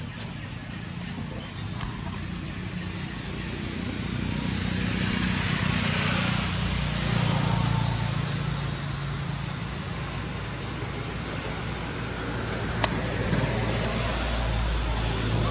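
Motor vehicle engines drone steadily as traffic passes, swelling about halfway through and again near the end.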